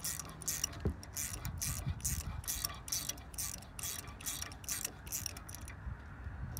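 Ratcheting 10 mm spanner on a 7 mm Allen bit clicking steadily, about four clicks a second, as it undoes the lower guide bolt of a rear brake caliper; the clicking stops about a second before the end.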